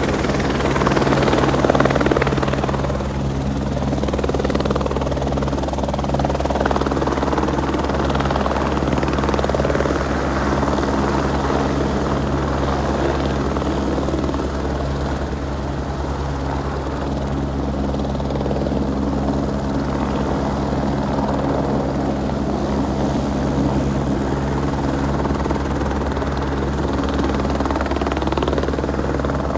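Sheriff's patrol helicopter running close by: a steady low rotor throb with turbine noise over it, a little louder in the first couple of seconds as it settles onto the ramp, then even as it sits on the ground with the rotor turning.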